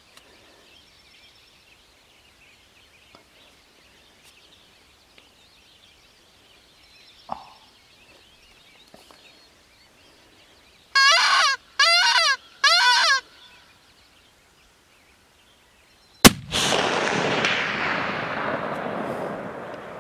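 A single rifle shot: one sharp crack whose report rolls and echoes across the canyon, dying away over several seconds. About three seconds before it come three short, loud wavering calls.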